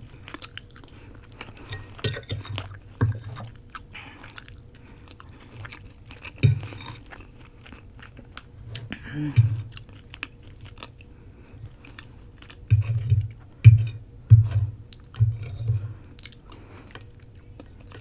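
Close-miked chewing of roti: wet mouth sounds with scattered sharp clicks, coming in a denser run about three quarters of the way in.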